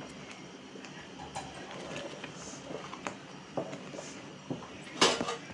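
A spoon stirring thick beetroot halwa, scraping and knocking against the pan in scattered light clicks, with a louder clatter about five seconds in.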